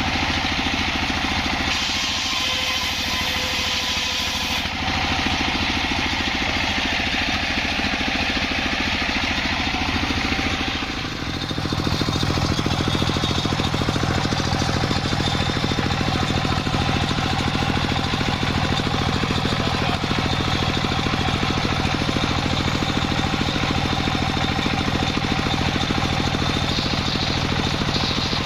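Engine-driven sawmill running, with the blade cutting through jackfruit wood for the first ten seconds or so. About eleven seconds in the cutting noise stops and the engine runs on steadily.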